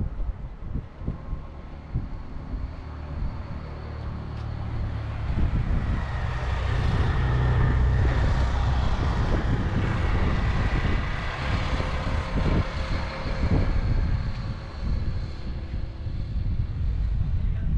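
Rumble of a vehicle on the move, with wind buffeting the microphone, growing louder about six seconds in.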